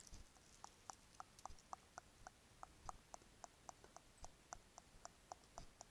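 Bracelet being tapped in an even rhythm: faint, short, sharp clicks, about four a second, starting about half a second in.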